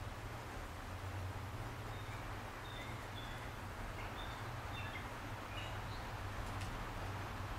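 Quiet evening outdoor ambience: a steady low hum and hiss, with a scatter of faint, short, high chirps between about two and six seconds in, and a single faint click near the end.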